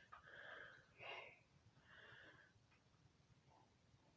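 Near silence, with three faint, short breaths in the first two and a half seconds.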